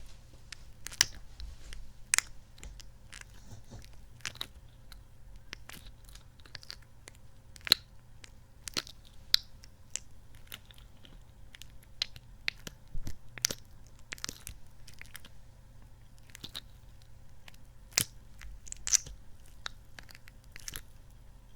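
Sticky, squishy kidney-bean capsule toy squeezed and pulled apart close to the microphone: irregular sticky clicks and squelches, with a few sharper snaps.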